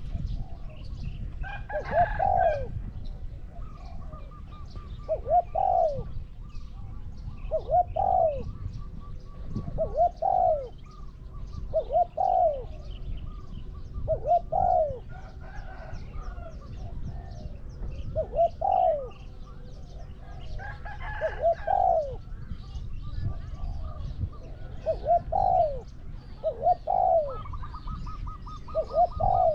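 Spotted doves cooing, a repeated low coo phrase every two to three seconds.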